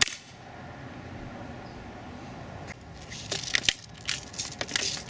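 A single sharp crack right at the start, a shot from a Daisy Powerline 880 BB gun at the match target. From about three seconds in, a run of irregular dry crackling clicks.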